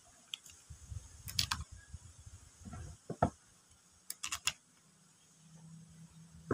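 Light clicks and knocks of the metal gear housing of a Makita 9527NB angle grinder being handled and its small parts fitted by hand, with a quick run of sharp clicks about four seconds in.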